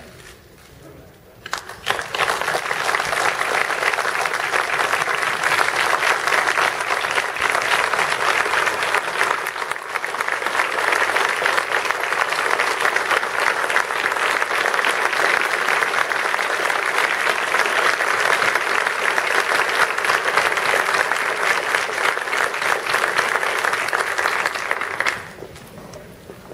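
A council chamber full of people applauding, a dense steady clapping that breaks out about a second and a half in, holds for over twenty seconds and dies away near the end.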